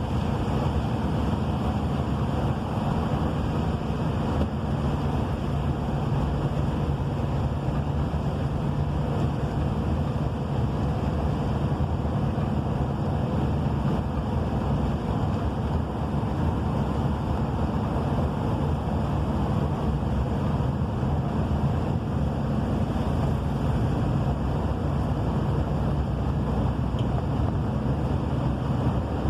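Rain falling steadily, a continuous deep rushing noise with no breaks or single drops standing out.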